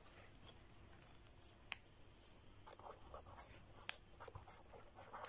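Fine felt-tip marker writing on paper, faint scratchy strokes with a few sharp taps of the tip.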